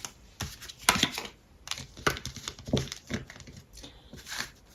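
Tarot cards being handled: irregular soft clicks and rustles of card stock being shuffled and laid down.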